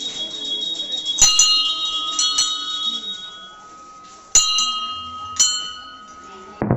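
A metal bell struck about five times, each stroke ringing on with clear sustained tones. Near the end it cuts abruptly to a loud, dense run of rapid beats.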